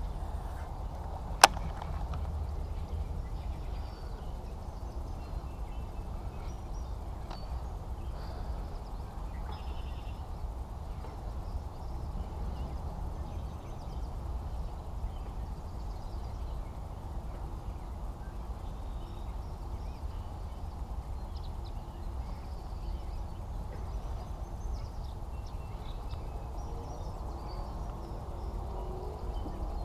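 Steady low rumble of wind buffeting a chest-mounted camera's microphone, with one sharp click about a second and a half in.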